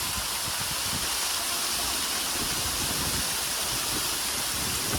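Steady rushing of a flash-flood waterfall pouring off the sandstone in torrential rain, with the rain hissing down.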